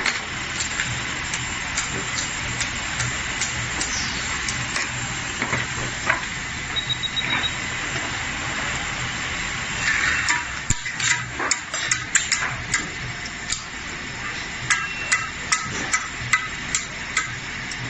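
Multi-spindle fishing line winding machine running with a steady hum and hiss, overlaid by frequent sharp clicks and knocks from the spools and parts being handled, thicker in the second half. A short run of high beeps about seven seconds in.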